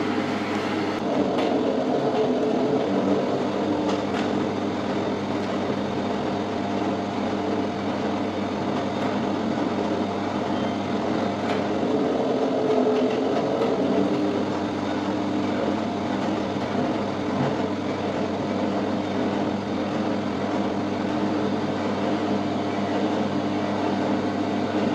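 Electric dough sheeter's motor and rollers running with a steady hum as dough is fed through the rollers, with a few faint clicks.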